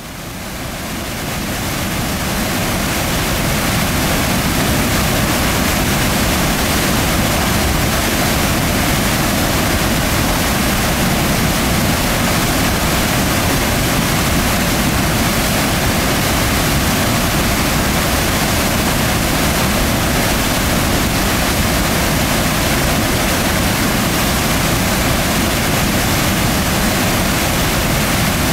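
Glacier-fed Saskatchewan River cataract: white water falling through a narrow rock gorge, making a loud, steady rush that fades in over the first couple of seconds.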